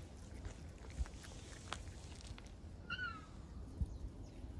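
A cat meows once about three seconds in, a short high call that dips slightly at the end, with a couple of faint clicks before it.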